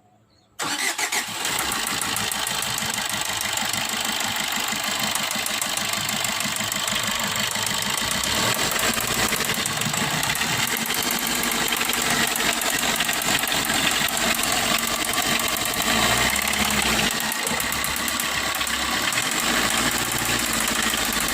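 Maruti Swift Dzire engine starting about half a second in, then running with a rapid, regular knock from inside the engine, the knock the mechanic puts down to a worn connecting-rod bearing.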